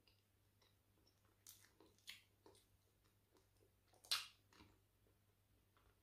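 Faint, wet chewing and mouth sounds of a person eating yam with owo soup, a few soft clicks and smacks, the sharpest about four seconds in.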